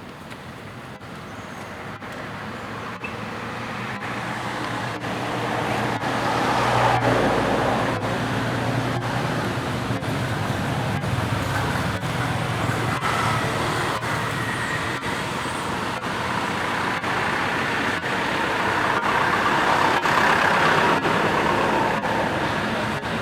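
Road traffic: motor vehicles running past, the noise building and swelling twice, about a third of the way in and again near the end.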